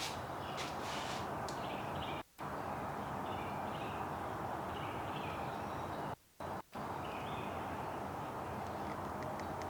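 Sparrows chirping in short scattered notes over a steady background hiss. The sound cuts out abruptly for a moment three times.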